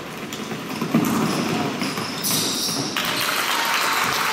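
Basketball game court noise in a sports hall: a sharp thud about a second in, followed by short high squeaks and the general din of players and spectators.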